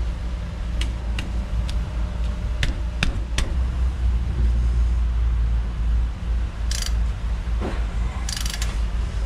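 A hand wrench working a suspension bolt on a car's front strut: a few light metal clicks, then a couple of short rasping bursts near the end, over a steady low hum.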